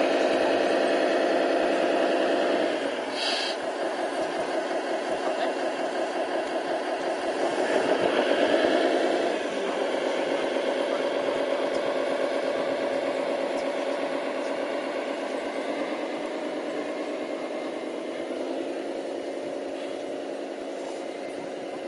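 Radio-controlled scale-model construction machines, an excavator and a MAN TGA 6x6 dump truck, running with a steady mechanical hum of several tones. It dips about three seconds in, swells around eight to nine seconds, then settles and slowly eases off.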